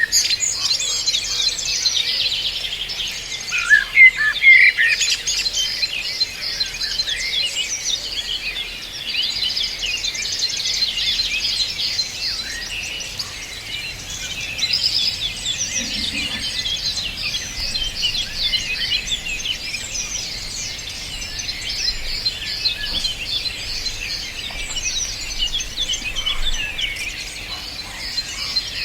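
Many small birds singing together: a dense, overlapping chorus of quick high chirps and twitters, with a louder, lower call about four seconds in.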